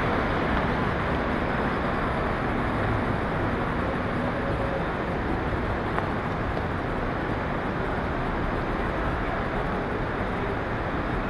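Steady city street noise: a continuous hum of traffic with no distinct events.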